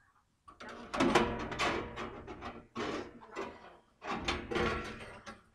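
Steel band-saw blade of a portable sawmill being worked off its wheels and dragged out of the steel blade housing: a series of loud metal-on-metal scrapes and rattling slides, starting about half a second in.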